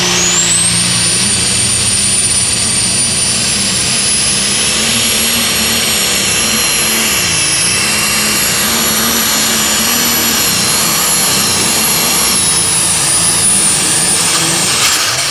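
International super stock pulling tractor's turbocharged diesel running flat out under load on a pull. A high turbo whine climbs within the first second and holds, the engine note wavers midway, and the whine falls away near the end.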